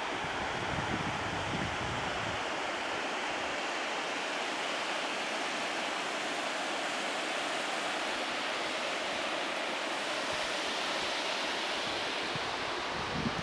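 Steady rushing of river rapids, an even roar of water without a break. Some low wind buffeting on the microphone in the first couple of seconds.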